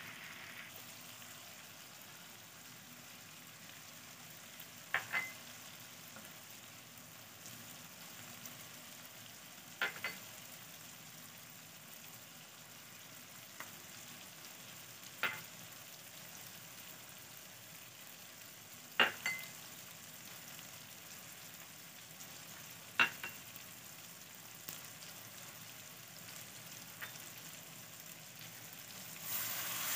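Onion, ginger-garlic and tomato masala sizzling gently in oil in an aluminium wok, a faint steady frying hiss. A brief sharp click breaks in every four or five seconds.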